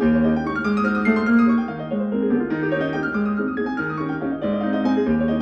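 Background piano music: a steady keyboard melody over held bass notes.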